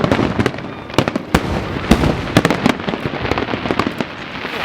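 Fireworks display going off: an irregular run of sharp bangs and cracks, several close together about a second and two seconds in, over a steady rumbling haze.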